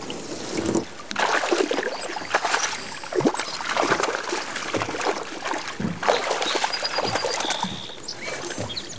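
Water splashing and dripping as a wet mesh trap net is hauled up hand over hand into a boat, in irregular bursts, crowding the caught fish into the end of the net.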